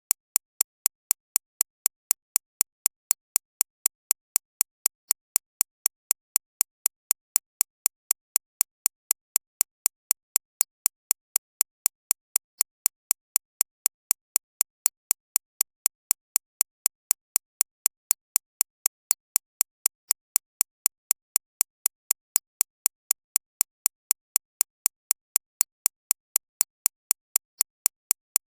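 Digitally synthesized recreation of a shockwave therapy (ESWT) machine's impacts, tuned to stress the 6.5–13.5 kHz range. It is a steady train of short, sharp clicks at an even rate of about three to four a second. The clicks are brightest high in the treble, with near silence between them.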